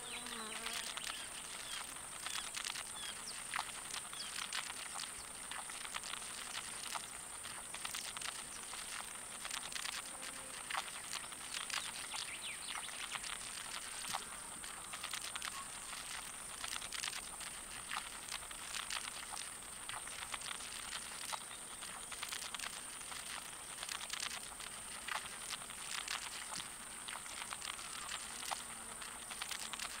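Irregular faint ticking and scratching of blue death feigning beetles' feet on sand and on the camera, over a steady high-pitched whine.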